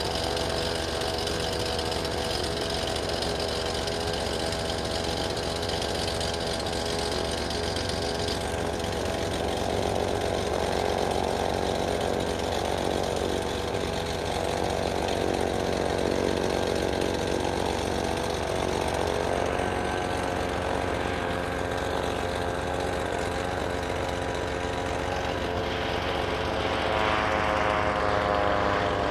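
Air Tractor 502 crop duster's PT6A turboprop engine and propeller running steadily in flight, growing louder near the end as the plane passes low overhead.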